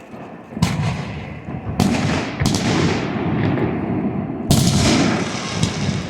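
Aerial fireworks shells bursting: four loud booms, the first about half a second in, then two close together near two seconds, and a last one near four and a half seconds. Each boom is followed by a long, slowly fading rumble.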